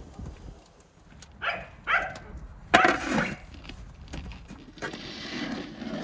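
A large round metal lid is handled and fitted onto a wide metal cooking pan: a few short knocks, the loudest a sharp clank with a brief ring just under three seconds in, then a stretch of metal scraping as the lid goes onto the pan.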